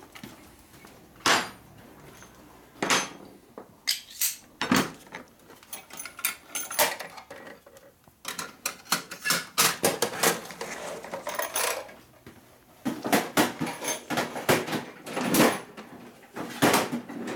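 Metal tools and parts clinking and clattering as they are handled and set down, in scattered single knocks at first, then busier runs of clatter through the middle and near the end.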